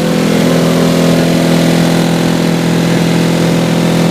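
A car audio competition system playing a loud, steady, buzzing tone at a fixed pitch, driven hard for a sound-pressure-level run.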